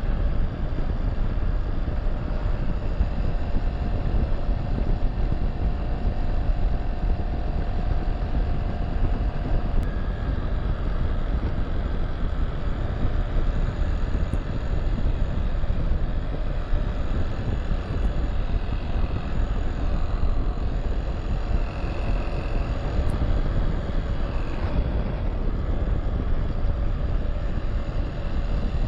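Steady running of a Honda Super Cub JA07's single-cylinder engine with a dense low rush of wind on the microphone. The engine has developed a strange noise, which the owner describes as a sudden clattering and suspects comes from a loose screw.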